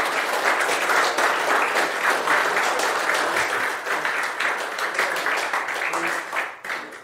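An audience applauding, dense steady clapping that fades away near the end.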